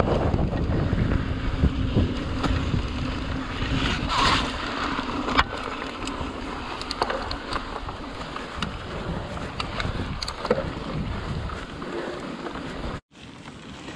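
Wind buffeting an action camera's microphone over the low rumble of mountain bike tyres rolling on a dirt trail, with scattered clicks and rattles from the bike. The sound breaks off abruptly about a second before the end.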